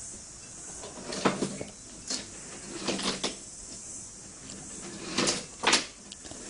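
Wooden toy train pieces knocking and clattering against the track and table: a handful of short clacks, spread out, the loudest about a second in and near the end.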